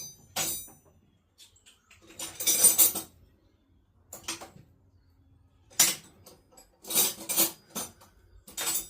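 Metal hand tools clinking and clattering in several separate bursts while a wrench is picked out from among others, with a short metallic ring about half a second in.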